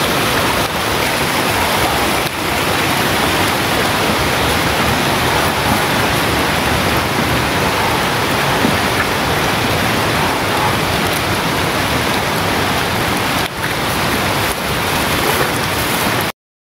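Steady heavy rain, an even loud hiss, which cuts out completely for a moment near the end.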